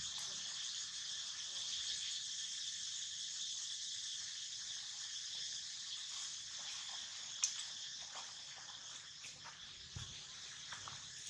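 Steady high-pitched drone of insects, with one sharp click about seven seconds in.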